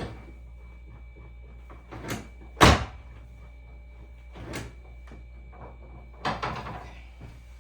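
Thuds and knocks on a chiropractic adjusting table during a hip adjustment: a light knock about two seconds in, then one sharp, heavy thump, a softer knock, and a short cluster of knocks near the end.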